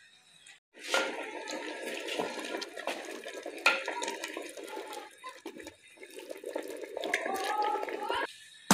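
Water running into a vessel, its pitch rising near the end as the vessel fills, then stopping abruptly.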